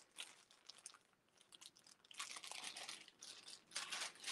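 Faint rustling and crinkling of packaging being handled, with a short pause about a second in and busier crinkling from about two seconds in.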